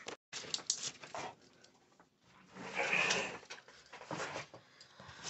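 Rustling and small knocks of handling in a small room, with a louder rustle about three seconds in.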